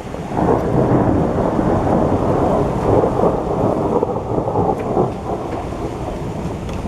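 A long rolling rumble of thunder that builds just after the start, holds for several seconds and slowly dies away.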